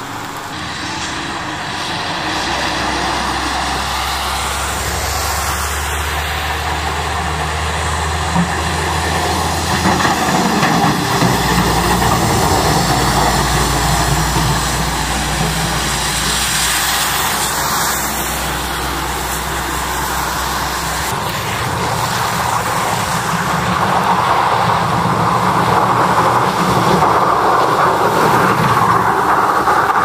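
Snowplow trucks driving by while plowing: a steady low engine hum with the rush of tyres and plowed snow, which grows louder in the last third.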